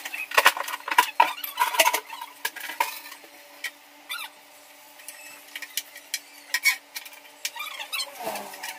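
Clattering and knocking of wooden boards and debris being pulled out from under a kitchen counter and set down on a tiled floor, busiest in the first three seconds, then scattered knocks.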